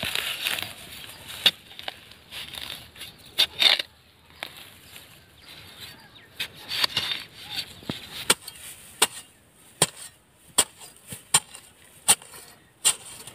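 Iron digging bar striking and prying into hard earth to dig out a rat burrow. It gives a series of sharp knocks, about one to two a second, that come more regularly in the second half, with scraping and rustling of soil between them.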